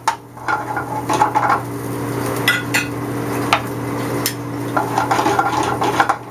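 Shallots being sautéed in a hot pan, stirred with a utensil that scrapes and clinks against the pan several times.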